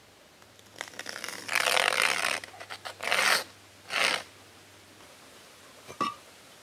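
A hand tool scratching a line into the soil along the edge of concrete blocks: one long scrape, then two short ones. Near the end, a light knock of a concrete block as it is lifted.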